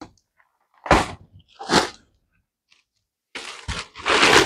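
A storage stool being unpacked and handled: two sharp knocks a little under a second apart, then from about three and a half seconds in, a dense stretch of crackling and rustling of packaging with a few knocks.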